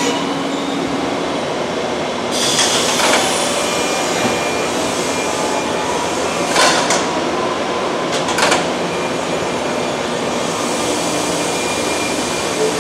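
JR 201 series electric train's line breaker switching with sharp 'pakon' clunks as the driver briefly takes and drops a power notch while pulling away: two clunks about two and a half seconds in, then single ones near the middle and again a couple of seconds later. Steady running noise of the train lies under them.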